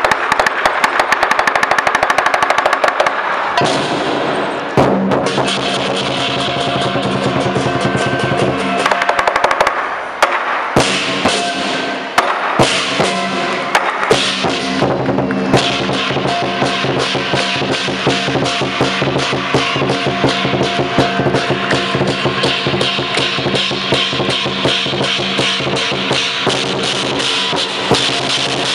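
A rapid crackle of firecrackers for the first few seconds, then lion dance percussion takes over: a drum beaten in a steady driving rhythm with ringing cymbals and gong.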